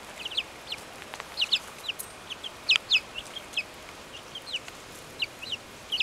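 A group of young chicks peeping: many short, high chirps that fall in pitch, several a second and overlapping.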